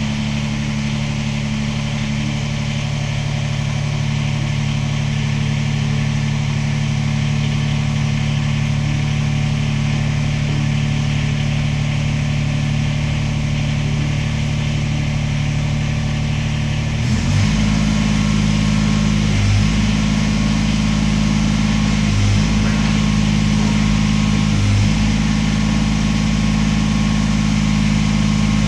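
Tractor engine running steadily; about 17 seconds in its note changes and the low end grows louder.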